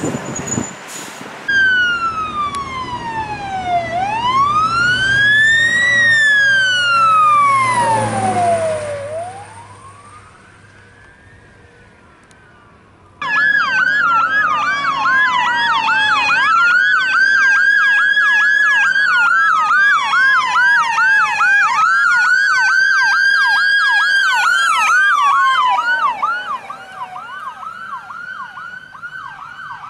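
Fire truck sirens. A wail rises and falls slowly over several seconds, over a low engine rumble. After a few quieter seconds, sirens start again abruptly: a wail with a fast yelp sweeping over it, changing to a quicker, thinner warble near the end.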